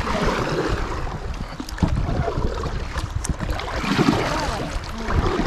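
Kayak paddles dipping and splashing in river water around an inflatable kayak, with wind rumbling on the microphone. The splashing swells up twice, near the start and about four seconds in.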